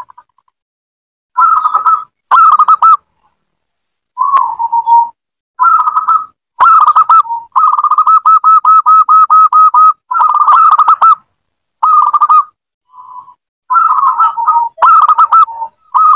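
Local-type zebra dove (perkutut) song: short phrases of quick, bubbling coo notes separated by silent gaps, with one long run of about a dozen rapid repeated notes about eight seconds in.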